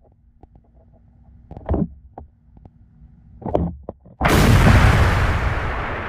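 A sudden loud splash and rush of water about four seconds in, heard by a camera sitting in the water, fading away over the next couple of seconds as the crawfish bait on its football jig is yanked up out of the pool. Before it, a faint steady hum and two soft knocks.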